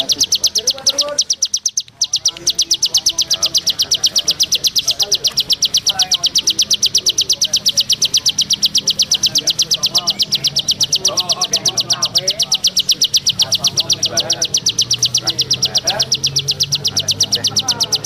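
Small songbird singing a continuous, very even trill: a rapid run of high, clicking notes that never breaks, with fainter chirps of other birds underneath.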